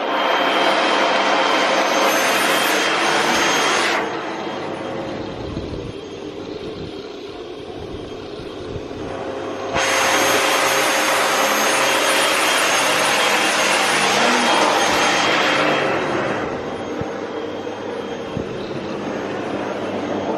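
Household vacuum cleaner running: a steady rushing with a thin motor whine over it. It turns quieter and muffled about four seconds in, comes back loud near ten seconds, and eases off again around sixteen seconds.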